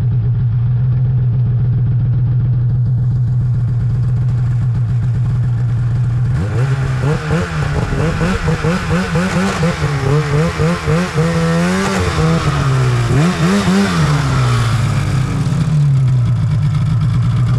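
2017 Arctic Cat M8000 Proclimb snowmobile's two-stroke twin engine idling steadily, then revved in a string of throttle blips from about six seconds in, its pitch rising and falling for some nine seconds before it settles back to idle.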